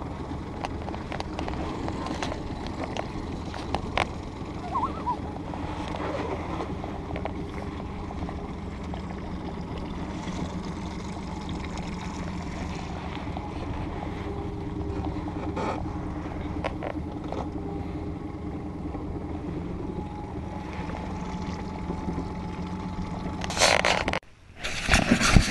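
A small boat's outboard motor running steadily while trolling, with the wash of water along the hull and scattered small clicks. Near the end a sudden loud burst of noise breaks in, then cuts off.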